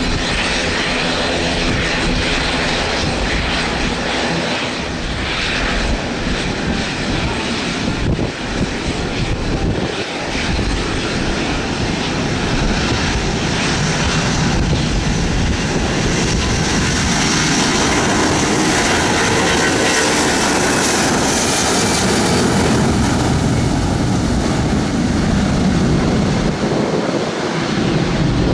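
Aircraft engines running loud and steady, with the hiss in the upper range swelling through the middle and easing near the end.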